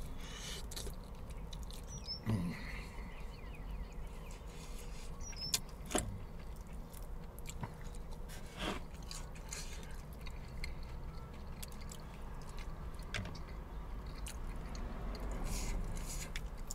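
A person chewing crispy fried chicken, with a few short sharp crunches spread through the chewing.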